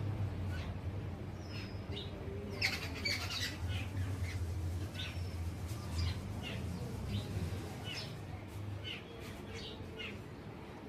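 Jungle babblers giving short, harsh calls, scattered throughout and busiest about three seconds in, over a low steady hum.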